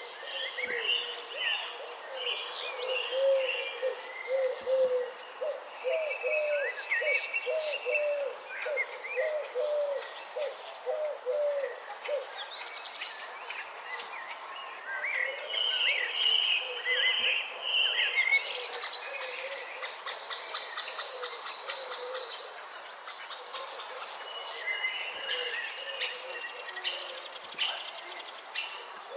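Forest ambience: insects keep up a steady high-pitched drone while several birds chirp and trill. A low call repeats about twice a second for several seconds in the first half.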